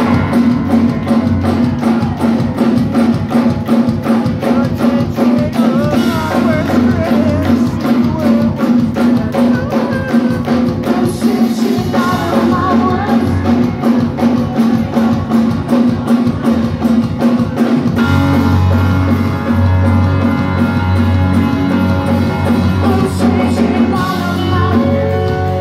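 A live post-hardcore band playing loud through a club PA, with busy drumming under guitars and bass, heard from within the crowd. About eighteen seconds in, the low end gets heavier with long held bass notes.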